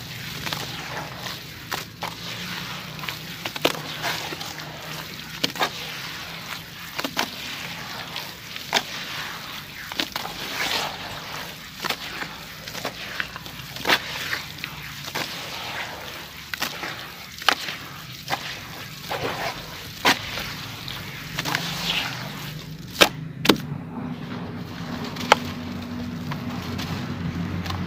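Hands squeezing and kneading wet crumbled sand-cement mush in a bowl of water: gritty squelching and sloshing, with a sharp wet splat every second or so. Near the end a dry cylindrical block is crumbled into the water.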